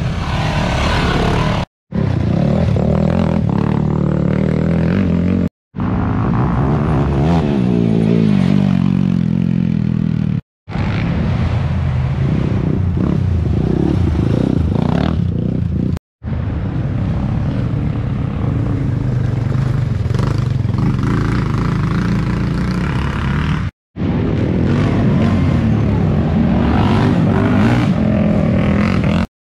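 Racing quad (ATV) engines running hard, their pitch rising and falling as the riders rev and ease off. The sound cuts out for a split second five times.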